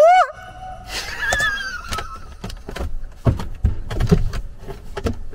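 People shouting in the distance at night. A loud yell rises and is held at the start, then a higher wavering shout trails off, with scattered knocks and clicks after it.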